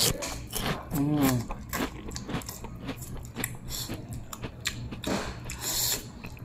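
Eating sounds of pancit canton noodles and rice: chewing, mouth smacks and sharp utensil clicks, with a short hummed note about a second in and a longer noisy stretch near the end.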